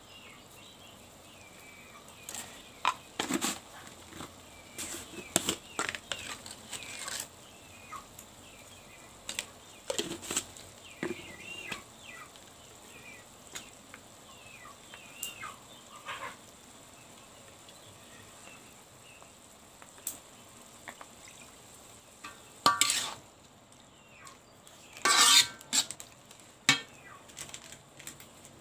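A utensil stirring and scraping in a pan of stir-frying water spinach, with a soft sizzle and scattered clinks. There are louder clatters about 23 and 25 seconds in.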